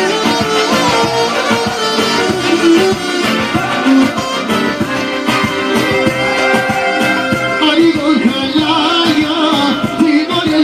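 Albanian aheng folk music: a band with plucked strings playing a lively tune, with singing.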